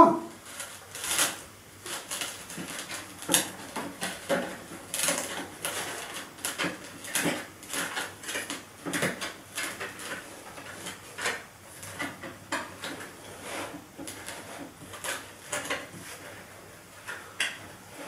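Foam filter being worked back over the plastic filter cage of a Titan TTB350VAC wet and dry vacuum's motor head. The plastic housing gives irregular small clicks, knocks and scuffs as it is handled.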